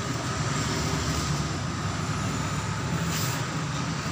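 Steady low rumble of a nearby vehicle engine running, with the plastic courier bag rustling as it is pulled open.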